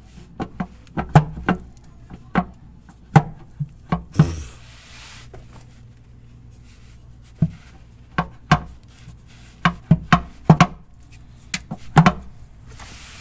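Irregular sharp knocks and clunks from a VW Mk5 R32 oil pan being worked loose by hand, still stuck to the engine with RTV sealant. There is a short scrape just after four seconds in and a quieter spell in the middle.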